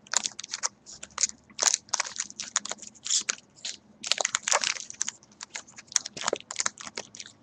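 Trading-card pack wrapper crinkling and crackling in quick, irregular bursts as it is handled and worked open.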